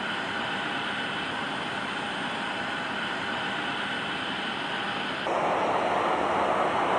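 Steady aircraft whine and hum on an airport apron. About five seconds in, this cuts abruptly to louder jet engine noise from a Ryanair Boeing 737-800 taxiing on its CFM56-7B engines.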